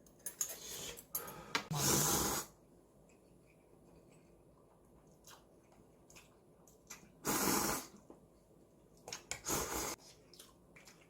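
Several short, breathy hisses from a person at the table, each about half a second long, the loudest about 2 seconds in, with a few faint clicks between them.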